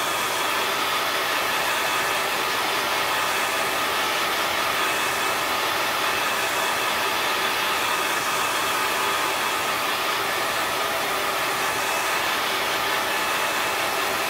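Handheld hair dryer running steadily: an even rush of air with a faint motor whine, blowing on freshly applied chalk paste to dry it.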